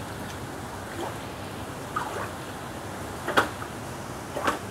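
Long-handled scrub brush sweeping standing rainwater out of a tiled ledge: four swishes and splashes, the loudest a little past halfway, over a steady hiss of rain.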